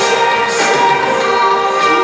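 Live electronic rock band playing loudly over a concert PA, with held keyboard chords and electric guitar.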